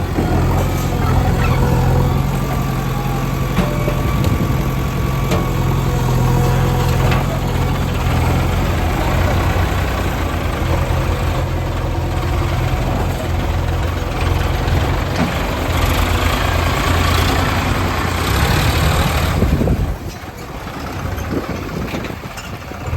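Diesel engine of earthmoving machinery running steadily, with a few faint knocks; it gets quieter about twenty seconds in.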